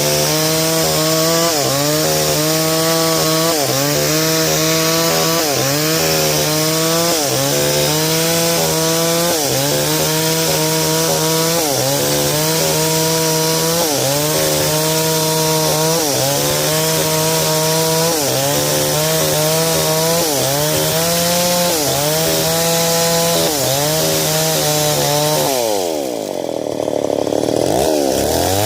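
Stihl 070 two-stroke chainsaw ripping a log lengthwise, running loud with its engine note dipping and recovering about every second and a half. About 25 seconds in the revs fall away sharply, then climb back up near the end.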